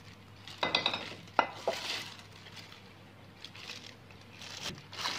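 Kitchen handling sounds around a plastic mixing bowl: a few light knocks and clicks in the first two seconds, a soft rustle, then one more click near the end.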